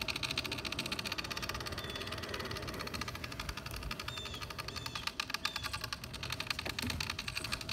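Bicycle freewheel hub ticking rapidly and steadily as a BMX bike coasts on asphalt.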